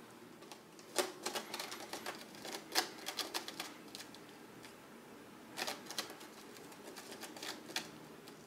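A cat's claws scratching and catching on the sisal-rope post of a cat tree: irregular runs of sharp clicks, one burst about a second in and another past the middle.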